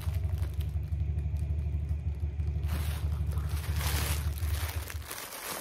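A steady low motor hum that stops about five seconds in, with plastic packaging rustling briefly around three and four seconds in.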